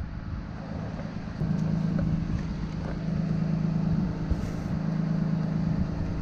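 Bucket truck's engine running steadily, getting louder about a second and a half in.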